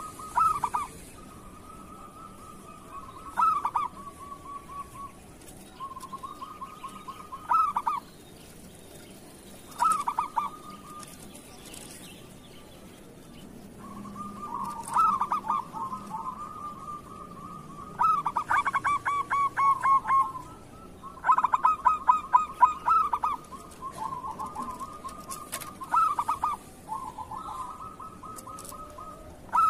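Zebra doves (perkutut) cooing: phrase after phrase of rapid, stuttering coos every few seconds. The phrases run together and grow louder in the middle of the stretch.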